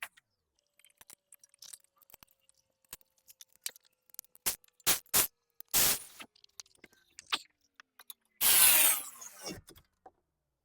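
Hand work on disc brake caliper parts: scattered small clicks and taps as slide pins and brackets are handled, with a few short noisy bursts and one louder one lasting about a second, some eight and a half seconds in.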